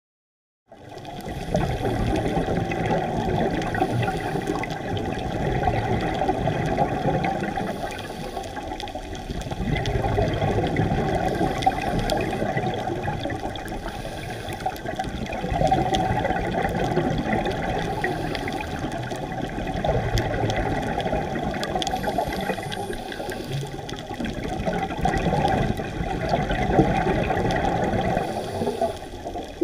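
Muffled underwater rush and bubbling, picked up by a diver's camera below the surface, swelling and easing every few seconds with the scuba diver's exhaled regulator bubbles.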